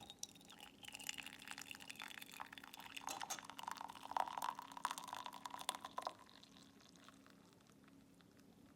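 Liquid being poured into a vessel, a steady splashing pour that stops abruptly about six seconds in.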